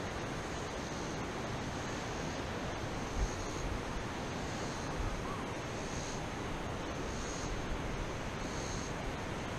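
Outdoor wind noise on the microphone: a steady rushing hiss with low gusty buffeting, and a faint high buzz that swells and fades about once a second.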